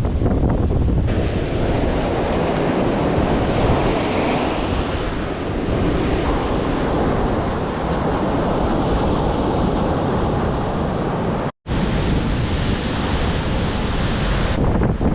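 Sea surf breaking and washing under strong wind, with gusts buffeting the microphone. The sound cuts out completely for an instant about three-quarters of the way through.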